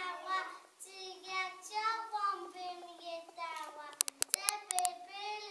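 Group of young children singing together without accompaniment, with a quick run of sharp clicks about four seconds in.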